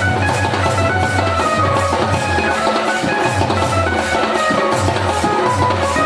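Loud dance music with a quick, steady drumbeat under a melody line.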